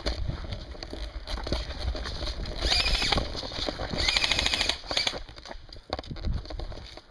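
Two short bursts of full-auto airsoft gun fire, rapid evenly spaced clicks, the second starting about a second after the first ends. Under them are low thumps and scuffs of a player moving.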